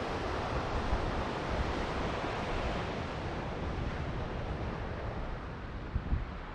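Ocean waves washing onto a beach: a steady rushing surf that eases a little after the first few seconds, with low wind rumble on the microphone.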